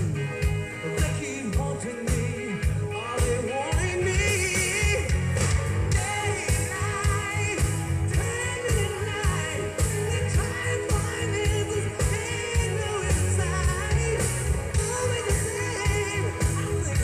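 Rock band playing live, with a lead singer's voice over a steady drum beat and electric guitar.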